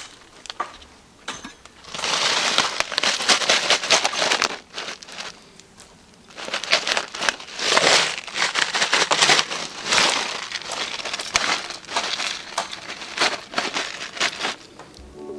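A newly lit campfire of dry kindling crackling, in dense spells of rapid pops and snaps that start about two seconds in, ease off briefly around five seconds, then build again.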